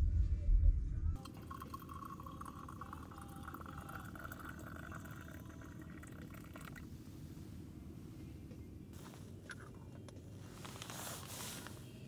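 Hot water poured into a small clay teapot, its pitch rising slowly as the pot fills. A loud low rumble at the start cuts off about a second in, and there is a short hiss near the end.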